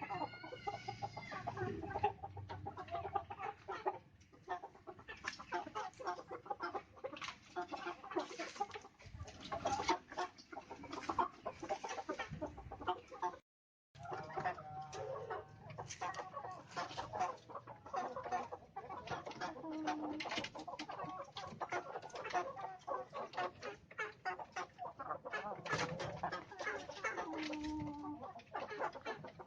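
Domestic chickens clucking in a steady, irregular chatter; the sound cuts out completely for about half a second midway.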